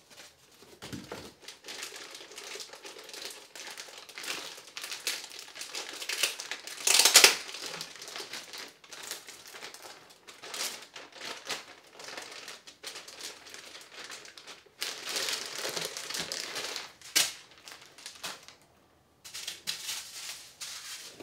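Plastic wrapping crinkling and rustling as it is pulled off a new oscilloscope, in irregular bursts, loudest about seven seconds in, with a short lull near the end.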